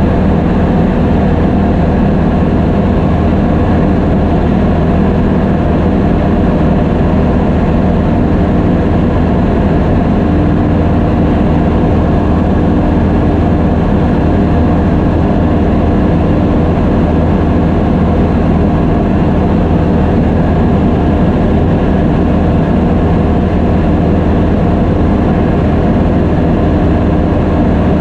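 Small airplane's engine and propeller running with a steady, unchanging drone, heard from inside the cabin.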